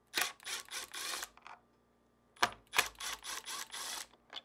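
Cordless Milwaukee M12 Fuel driver with a T15 Torx bit backing out the two screws of a refrigerator's center mullion hinge: two short runs of the motor, about a second and a half each, each starting with a click.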